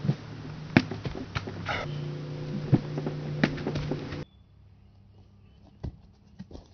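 Sharp knocks and thuds of hands and bare feet landing on a plastic cooler box and on grass during cartwheel attempts, over a steady low hum. About four seconds in the hum drops out and the background turns quieter, with a couple more thumps.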